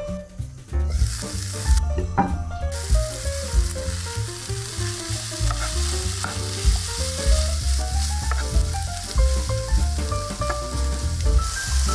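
Chicken and vegetables frying and sizzling in a pan while being stirred, the sizzle starting about a second in.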